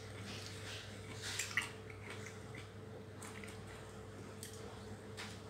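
A person eating rice and mustard greens with the fingers: soft chewing and wet mouth sounds with a few small clicks, over a steady low hum.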